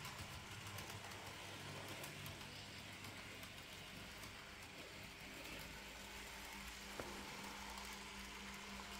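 N gauge model steam locomotive and coaches running along the track: a faint, steady motor hum and wheel rumble, with a single click about seven seconds in.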